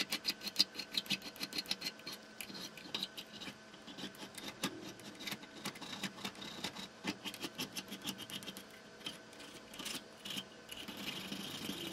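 Hand file rasping in quick, repeated strokes across a brazed-brass tooth on a small lathe change gear clamped in a bench vise, dressing the rebuilt tooth to shape.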